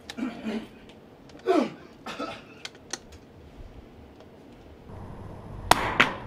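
Scattered sharp clicks and light knocks of a rifle being handled at a shooting booth, with two louder clicks close together near the end.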